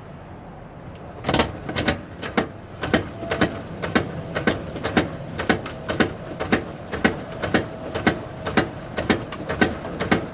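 Kenmore Elite HE5 washer making a repeated knocking or clicking, about two sharp knocks a second and often in close pairs, that starts about a second in over a steady hum. This is the weird sound the washer began making after an F70 error code, and its cause is unknown.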